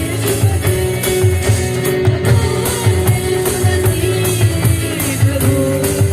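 Worship band playing an instrumental passage between sung lines: held melody notes over a steady beat of drum and percussion strokes.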